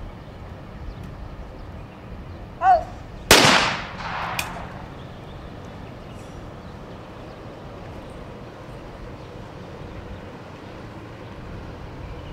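A trap shooter's short call for the target, then a single loud shotgun shot that echoes away over the range, with a fainter sharp crack about a second after it.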